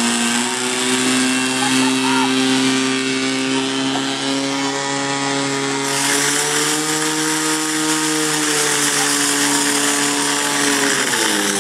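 Portable fire pump's engine running flat out, pushing water through the hoses; about halfway in a high hiss of the water jets spraying joins it, and near the end the engine pitch drops as the revs fall.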